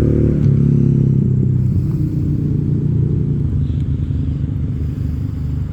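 Engine idling steadily close by, a low, even rumble that eases slightly in the second half.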